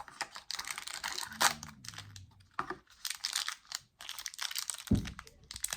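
Plastic toy packaging crinkling and clicking as it is handled and opened, with a low thump near the end.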